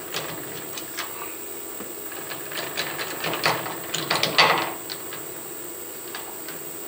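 Metal clinks and knocks as a steel bar is set into the jaws of a chuck, thickest and loudest about three to four and a half seconds in, over a steady background hum.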